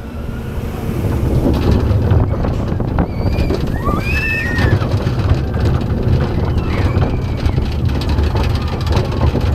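Roller coaster train running fast down a steep drop: a heavy low rumble from the wheels on the track and wind rushing over the microphone, getting louder about a second in. A short wavering high sound, like a rider's yell or a wheel squeal, comes about four seconds in.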